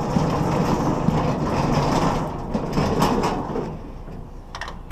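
Scrap being moved and loaded, a rumbling, rattling clatter that dies down after about three and a half seconds, then a couple of light clicks near the end.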